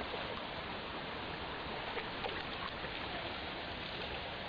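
Steady rushing of a shallow creek flowing over rocks.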